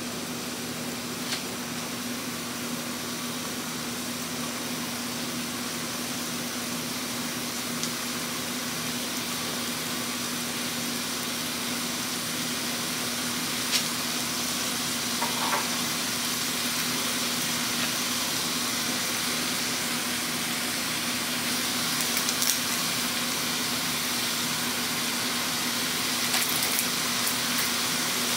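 Food sizzling in a granite-coated frying pan on a gas stove: a steady sizzle that grows a little louder, with a few scattered pops and crackles, over a steady low hum.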